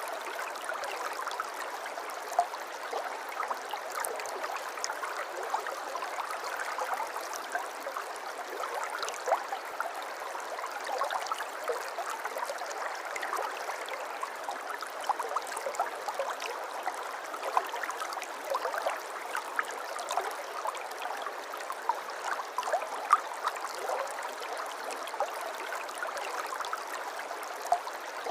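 Small river or stream flowing steadily over stones, a constant babble dotted with many small splashes and gurgles.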